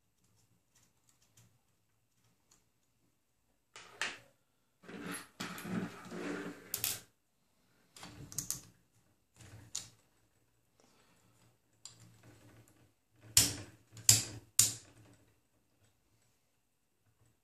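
Hands handling a Prusa i3 3D printer's X carriage on its smooth rods: clicking and rattling of plastic and metal parts. A scraping stretch comes about four seconds in, and three sharp clacks come near the end.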